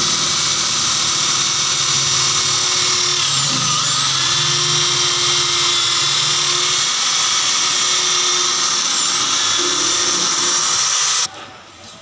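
Gold Dragon electric impact drill running steadily as it bores into the fridge's sheet-metal body at the door hinge. It cuts off abruptly near the end.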